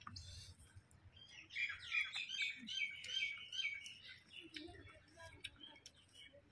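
Birds chirping: a quick run of short calls through the middle, then a few scattered calls.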